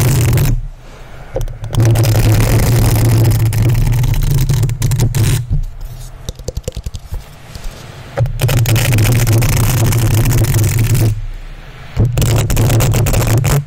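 Plastic bristles of a paddle hairbrush scraped and brushed over a microphone's metal mesh grille, a loud, dense scratching with a heavy low rumble, in long strokes broken by short pauses about a second in and near the end. In the middle it drops to a quieter patter of quick light taps and clicks.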